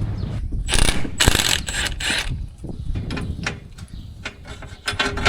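Mechanical ratcheting and metal clicking while a row-unit clutch is taken off a combine corn head: three or four rasping ratchet-like bursts about a second in, then scattered sharp clicks and clinks.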